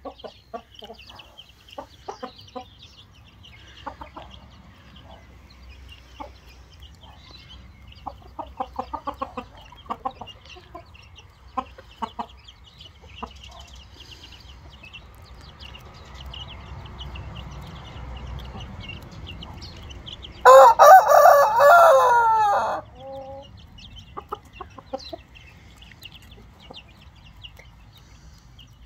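Chickens clucking softly on and off, with a run of quick clucks about eight to ten seconds in. About twenty seconds in, a rooster crows once, loudly, for about two seconds.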